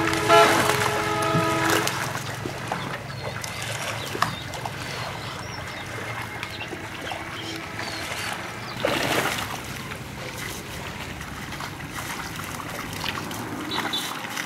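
Pond water splashing and sloshing as a man wades and sweeps the surface with his hands, with a louder splash about nine seconds in. A held pitched tone sounds during the first two seconds.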